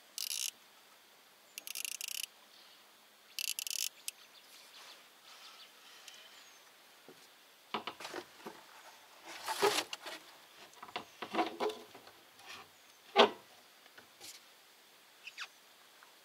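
Fishing reel cranked in three short whirring bursts over the first few seconds, then scattered knocks and taps of tackle being handled in a small boat, the sharpest knock a little after 13 seconds in.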